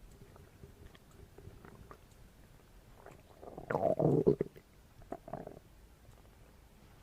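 Stomach growling: faint gurgles, then a loud gurgling growl about halfway through lasting under a second, and a shorter, quieter one about a second later.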